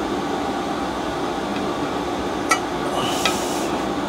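Steady fan-like hum of workshop background noise, with two light metal clicks about two and a half and three seconds in as a small steel lug is set against a steel bar on a steel bench.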